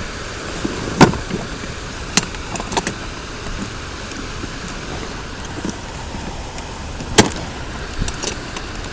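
Wheeled plastic case rolling on pavement: a steady rolling noise with sharp clacks about a second in, around two to three seconds in and near seven seconds, over street traffic.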